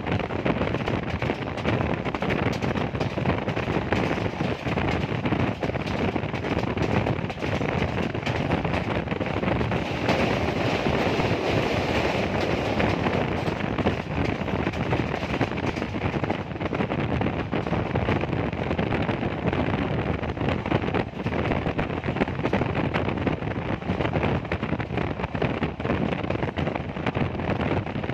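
Train running at speed, heard from an open window: a steady rumble and rattle of wheels on the track with wind buffeting the microphone, swelling for a few seconds around the middle.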